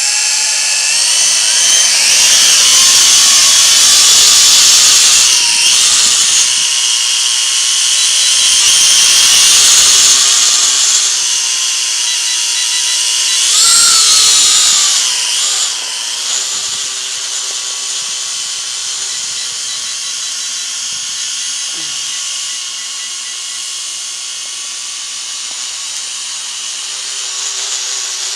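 W606-5 Flanker quadcopter's four motors and propellers cut in suddenly and run with a loud, buzzing whine. The pitch wavers and dips a few times as the throttle changes. The whine is somewhat quieter in the second half.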